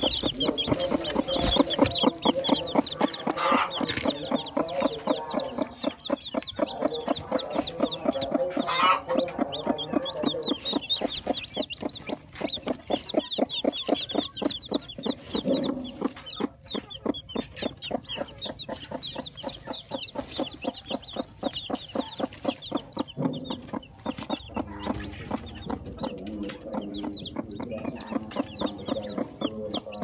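Newly hatched chicks peeping in rapid, high-pitched chirps, over a broody hen's even run of low clucks.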